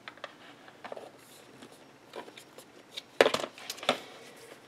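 Plastic cases of Distress Oxide ink pads clicking and clattering as their lids are shut and the pads are handled on a cutting mat: a few light clicks at first, then a quick run of louder clacks about three seconds in.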